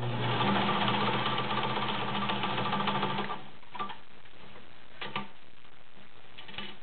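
White 764 sewing machine running and stitching through four layers of garment leather for about three seconds, then stopping; two light clicks follow.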